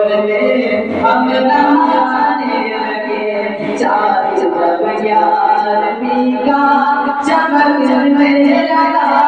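A man singing an unaccompanied Urdu manqabat in praise of Ghaus-e-Azam into a microphone, drawing out long, slowly bending notes with short breaths between phrases.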